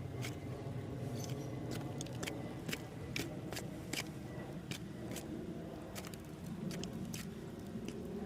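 Irregular sharp clicks, roughly one or two a second, over a steady low engine-like hum.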